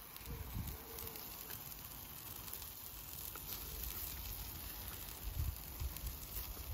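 Chicken pieces sizzling faintly on a charcoal grill, with a few faint crackles. Low gusts of wind buffet the microphone now and then.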